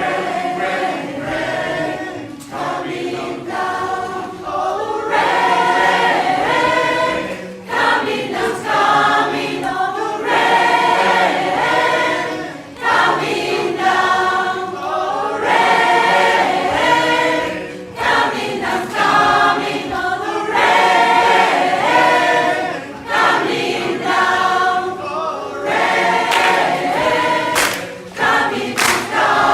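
A choir singing in harmony, phrases swelling and breaking off every few seconds. A few sharp clicks near the end.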